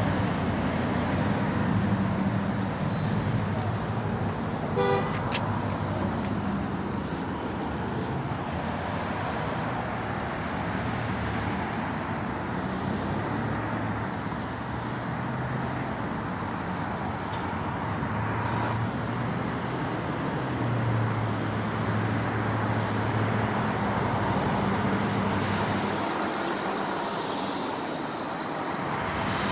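Road traffic passing steadily, cars going by, with a brief car horn toot about five seconds in.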